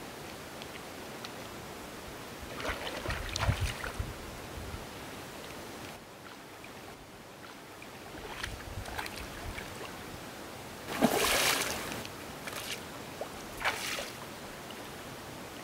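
Water splashing in irregular bursts as a hooked fish fights on the line close to someone wading waist-deep, over a steady background hiss. The loudest splash comes about eleven seconds in.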